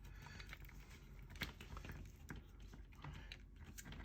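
Faint, scattered small clicks and taps of hands handling a plastic RV wall outlet and its wires, with one slightly sharper click about halfway through.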